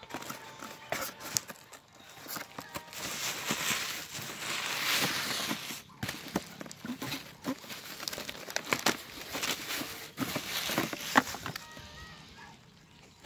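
Cardboard shipping box being slit and torn open by hand with a small blade. There is a long ripping rasp a few seconds in, then short scrapes, clicks and crinkling as the cardboard flap and plastic wrapping are pulled back.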